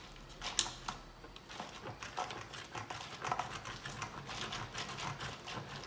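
Stick of frozen butter rubbed up and down a flat metal hand grater: repeated rasping strokes, a few scattered at first, then a fairly steady rhythm of about three a second.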